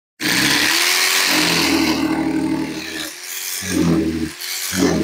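Electric fillet knife running in three bursts, a long one and then two short ones, a motor hum under the rasp of its reciprocating blades cutting a red drum fillet away from the skin.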